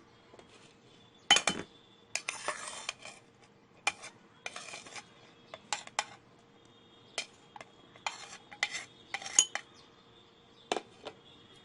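Metal spoon clinking against a glass jar and scraping as sugar and chopped onion are spooned in: sharp clinks every second or two, and two longer gritty scrapes about two and four and a half seconds in.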